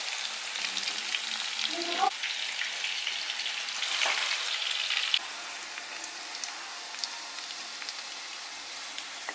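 Chicken pieces deep-frying in hot oil in an iron kadai: a steady sizzle with a few short clicks, dropping a little in level about five seconds in.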